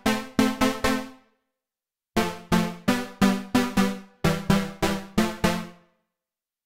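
Cherry Audio Octave Cat software synthesizer (an emulation of the 1976 Octave CAT) playing its 'PWM Pluck' preset: short plucked synth notes, about three a second, each with a sharp attack and quick decay. A short phrase is followed by a pause of about a second, then a longer phrase that stops about a second before the end.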